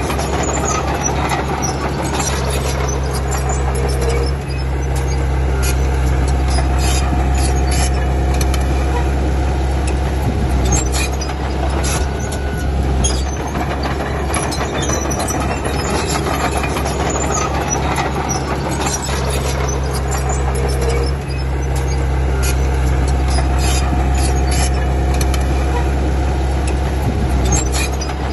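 Crawler bulldozer, a Komatsu D31P, working with a steady diesel engine drone, over which its steel tracks clank and squeal now and then.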